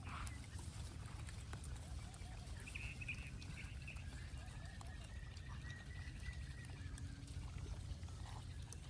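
Outdoor ambience: a steady low rumble with a few faint animal calls above it, a brief chatter about three seconds in and a long thin whistle-like call in the middle.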